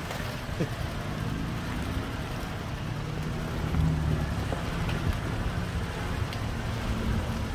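Off-road 4x4's engine running with a steady low rumble as it drives along a rutted, muddy dirt track, heard from on board the vehicle. The rumble swells a little about four seconds in.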